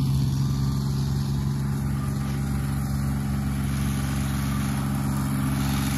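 A motor vehicle's engine running at a steady speed, a constant low hum that does not rise or fall.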